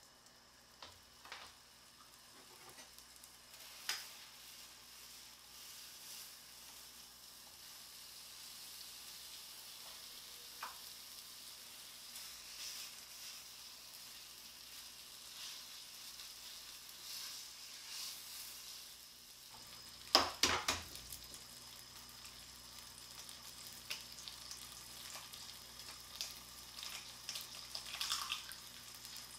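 Thick slices of homemade bacon sizzling steadily in a black steel frying pan, with scattered clicks and a few sharp knocks of a utensil or the pan about two-thirds through. Near the end an egg is cracked into the pan, adding more crackling.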